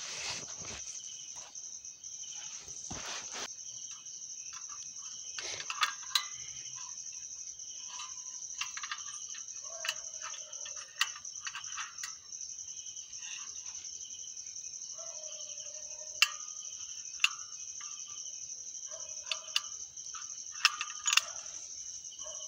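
Steady high-pitched chirring of crickets. Over it, scattered sharp clicks and short metallic knocks from a portable butane gas stove and its canister being handled.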